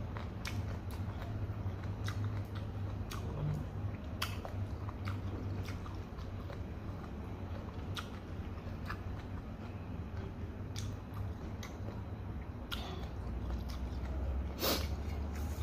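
Close-up mouth sounds of eating fried noodles: chewing with many short wet clicks and smacks, a louder one near the end, over a steady low hum.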